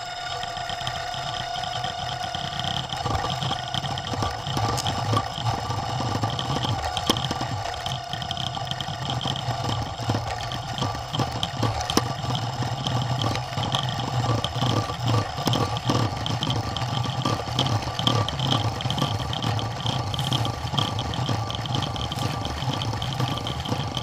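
Hexo+ camera drone's electric motors and propellers running on with a steady whining hum while the crashed drone is caught in tree branches, with frequent ticks and rattles as it knocks against twigs.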